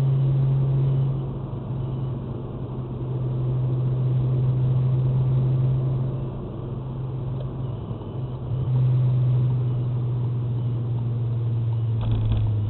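A vehicle engine running with a steady low hum, easing off in level twice and coming back.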